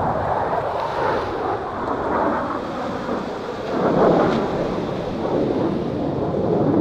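Jet engine noise from four Blue Angels F/A-18 Super Hornets flying overhead in diamond formation: a continuous rushing rumble that grows louder about four seconds in.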